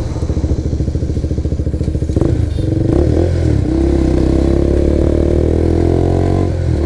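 KTM RC 200's single-cylinder engine running as the motorcycle rides along in traffic. The note is choppy and pulsing at first, with two short clicks about two and three seconds in, then settles into a steadier, slightly rising note with a brief dip near the end.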